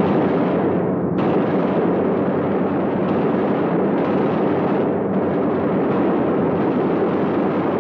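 Continuous loud din of a WWII bomber in combat: the steady drone of its engines mixed with dense gunfire.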